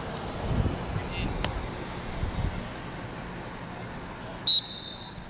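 A high, rapid trill of even chirps for about two and a half seconds, then a single short, sharp blast of a referee's whistle about four and a half seconds in, signalling the start of a lacrosse face-off.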